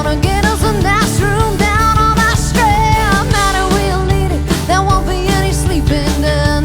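A band playing a rock and roll song: a steady drum beat and bass under a lead melody line that bends and wavers in pitch.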